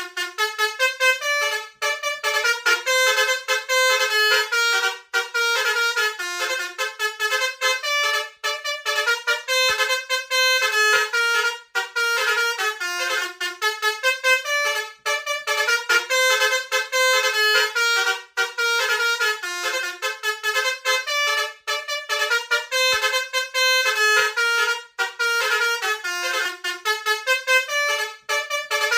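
Indonesian bus 'telolet' basuri horn, a set of electric trumpet horns, playing a quick tune of stepping notes. The same phrase repeats about every three seconds, with a short break between repeats.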